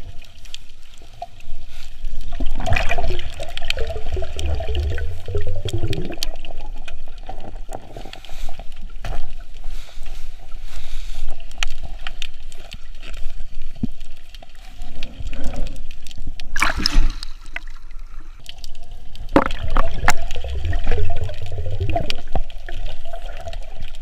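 Water sloshing and gurgling around a camera at the surface while snorkeling, with two longer spells of bubbling and a few sharp clicks and knocks.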